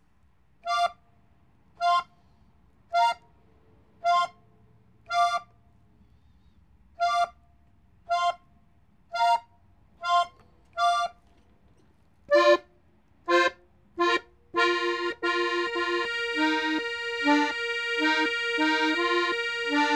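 Gabbanelli button accordion in F (accordeón de fa) playing a phrase slowly, one short note about every second. From about twelve seconds in the notes come faster, and then a note is held under a moving melody line.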